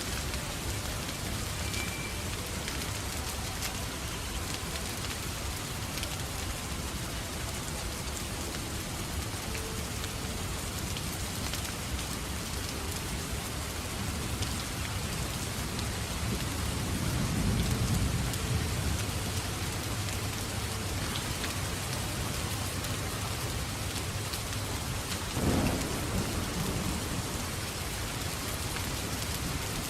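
Steady rain falling, with a low rumble of thunder swelling and fading about halfway through and a short, sharp crack a few seconds later.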